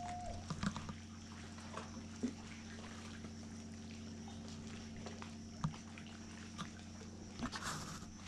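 Quiet outdoor ambience: a steady low hum with scattered soft clicks and knocks.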